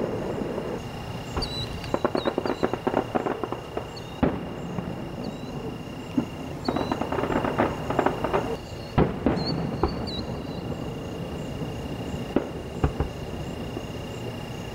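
Aerial firework shells bursting: two spells of rapid crackling pops, and several single sharp bangs in between and after.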